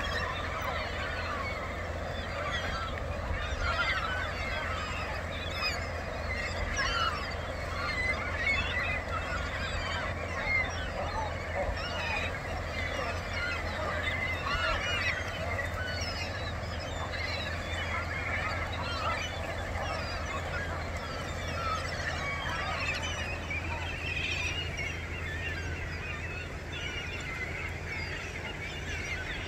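A dense, unbroken chorus of many seabird calls from a large feeding flock of cormorants with gulls among them, over a steady low rumble.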